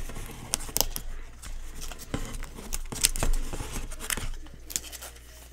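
Trading cards and their packaging being handled and sorted: an irregular string of light clicks, taps and rustles.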